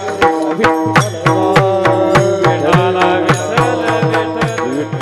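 Devotional kirtan music in raga Bhairavi: a held melodic line over a hand-drum rhythm of about three to four strokes a second, with sharp strikes.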